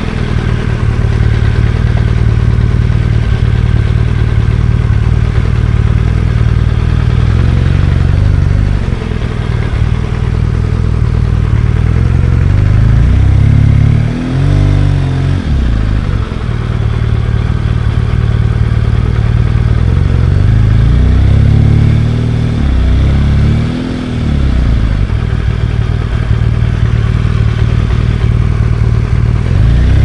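BMW R1200GS Adventure's boxer-twin engine running on the move, a loud steady rumble whose pitch rises and falls with the throttle. The note dips and swings twice, about halfway through and again later on.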